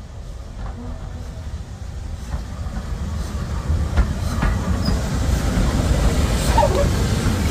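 Steam locomotive running tender-first with its train of coaches, drawing closer and passing: a low rumble that grows steadily louder, wheels clicking over rail joints, and a brief high wheel squeal about six and a half seconds in.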